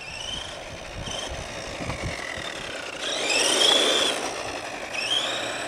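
Electric motor of a Carrera RC car whining as it speeds up and slows, its pitch rising and falling several times. It is loudest about three to four seconds in.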